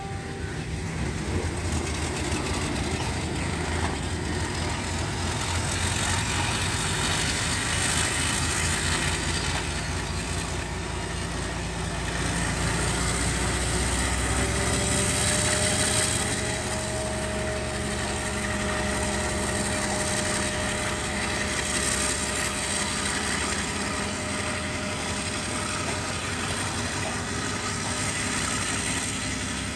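Sri Lanka Railways Class M9 (Alstom AD32C) diesel-electric locomotive hauling a passenger train past, its engine a steady low drone with a fast regular pulse, loudest about halfway through as it passes closest. A faint steady whine comes in as it passes, and the coaches keep rolling by afterward.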